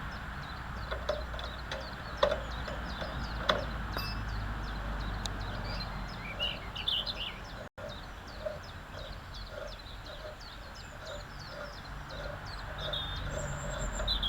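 Small birds chirping, with a soft regular ticking two or three times a second and a couple of sharp clicks.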